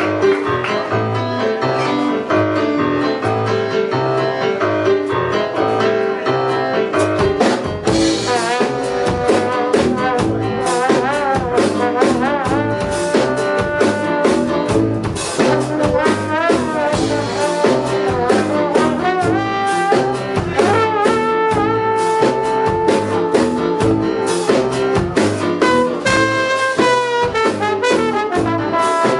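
Big band playing contemporary jazz: a brass section of trumpets and trombones with woodwinds over guitar, bass and drum kit.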